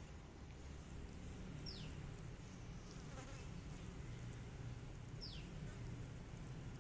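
Faint outdoor ambience with a low steady buzz, like a flying insect. A short high note falls sharply in pitch twice, about three and a half seconds apart.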